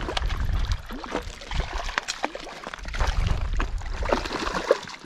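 Hooked brown trout splashing at the water's surface as it is reeled in to the net, in irregular splashes.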